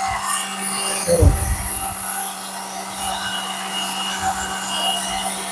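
Small hair dryer motor running with a steady hum and high hiss; its brushes, which the owner thinks have dried out, have just been sprayed with oil to quieten its noise. A low knock about a second in.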